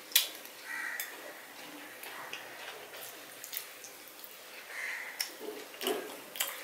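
Close-up eating sounds of rice and fish curry eaten by hand: wet chewing and lip smacks with a string of short sharp clicks, the loudest just after the start.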